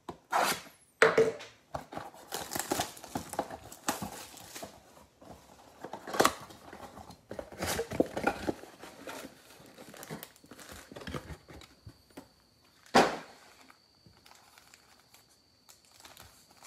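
A cardboard trading-card box torn open by hand, with crinkling and tearing as the flaps and inner tray are pulled out, then the wrapped card packs handled and taken out. One sharp knock comes about 13 seconds in, followed by quieter rustling.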